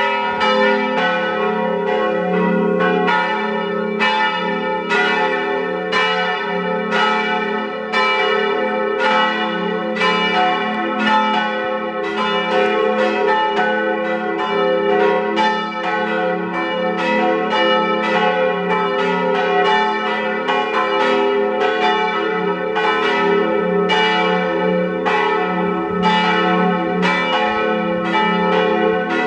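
Church tower bells pealing, with loud strokes about twice a second over a steady ringing hum.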